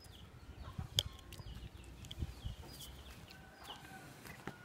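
Birds chirping: short, high, falling chirps repeating throughout, with one sharp click about a second in and a few softer taps.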